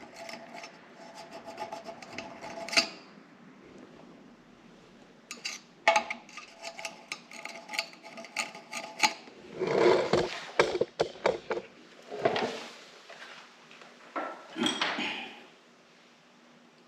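Handling of small air-compressor valve parts: scattered light clicks and taps with a few short scraping, rubbing strokes.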